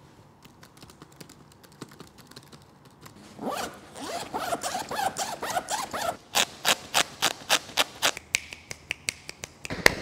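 Faint tapping on a laptop keyboard, then a backpack zipper pulled along for a couple of seconds. Sharp, evenly spaced hand claps follow, about three a second, getting louder near the end.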